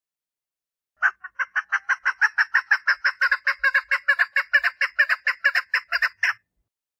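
Female chukar partridge giving her mating call: a fast, even run of short clucking notes, about six a second, that starts about a second in and stops abruptly after about five seconds.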